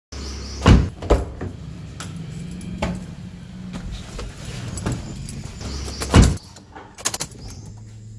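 Knocks and handling noise inside a car, over a low steady rumble. There are loud thumps about half a second in, at about one second and at about six seconds, and a quick run of clicks near seven seconds.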